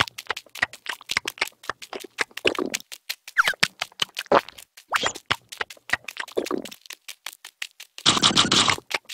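Cartoon sound effects: a rapid, continuous patter of tiny clicking steps as a crowd of animated ants scurries about, with a few short squeaky character vocalizations. A loud burst of rustling noise, about half a second long, comes near the end.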